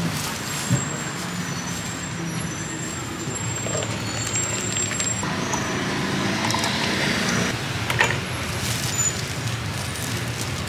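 Road traffic noise: motor vehicles running and passing, with a few sharp clicks.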